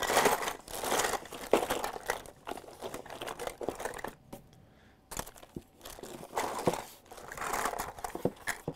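Plastic bag crinkling and rustling as a hand rummages through it for salvaged key fob donor boards, with a short lull about halfway through.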